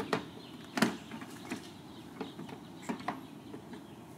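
Plastic clicks and knocks of a car tail light assembly being handled and pressed into its opening in the body: several short, sharp taps, the loudest about a second in.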